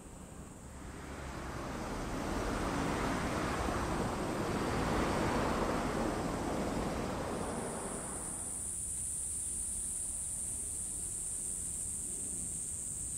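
A passing vehicle's rush of noise rises and fades over about seven seconds. About seven seconds in, a steady high-pitched drone of insects starts and continues.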